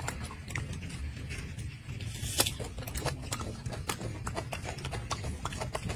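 Golden snub-nosed monkey eating fruit close up: irregular wet clicks and smacks of chewing over a low rumble, with one sharper click about two and a half seconds in.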